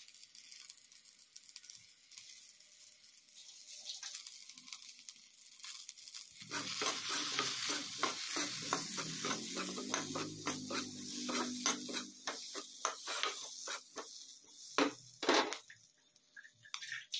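Spiced potato cubes sizzling as they fry in oil in a pan. From about six and a half seconds in, a spatula stirs them, scraping the pan over and over above the sizzle, with two loud scrapes near the end.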